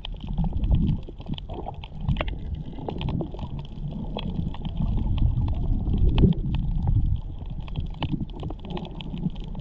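Muffled underwater rumble and sloshing of water moving around the camera, swelling and fading, with scattered sharp clicks and crackles throughout.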